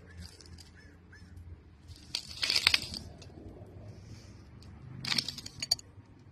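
Soil and debris crumbling and breaking away into a deep dig hole in two crackling bursts, the louder one about two and a half seconds in and a shorter one about five seconds in: part of the hole's undercut wall caving in.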